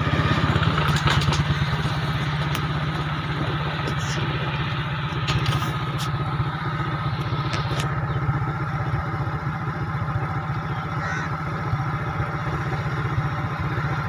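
A small engine idling steadily, with a few faint clicks over it.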